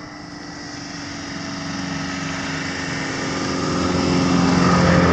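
A motor vehicle's engine approaching, its steady hum growing louder and loudest near the end as it draws close.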